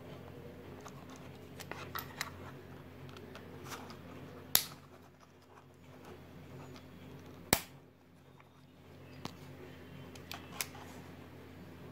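Plastic miniature circuit breakers handled by hand against their cardboard boxes: light clicks and taps, with two loud sharp snaps about three seconds apart near the middle.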